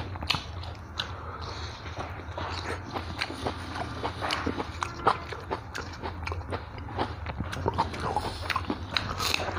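Close-miked chewing and lip-smacking of a man eating rice and curry by hand, a dense run of small wet clicks, over a low steady hum.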